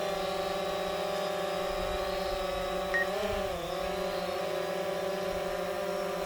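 DJI Phantom 4 quadcopter hovering, its propellers giving a steady multi-toned whine. About halfway through there is a short sharp blip, then the pitch dips and comes back up as the motors change speed.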